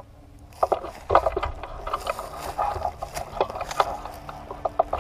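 Climbing noise as a player in gear hauls himself up a tree: a busy, irregular run of clicks, knocks, scrapes and creaks from gear, bark and branches, starting about half a second in.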